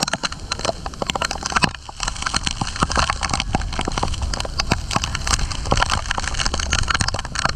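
Hard rain and spray from the falls pelting the action camera and plastic rain ponchos: a dense, irregular patter of sharp taps over a low rumble.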